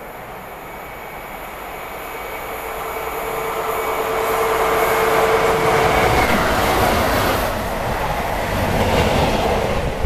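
Pair of Class 90 electric locomotives at the head of a container freight train, approaching and passing at speed. A steady tone grows louder as they come in and stops as they go by about six seconds in, followed by the rumble and clatter of the container wagons running past.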